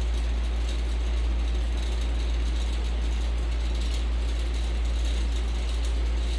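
Ceiling fan running steadily: a constant low rumble under an even whirring hiss, with no change in speed.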